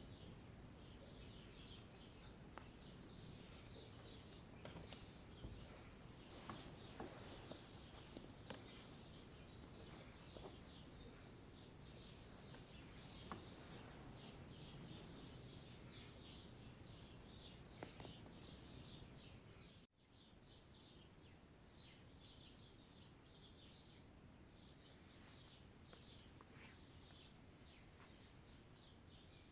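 Faint birdsong: many short chirps over a low steady background hiss, with a brief dropout about twenty seconds in.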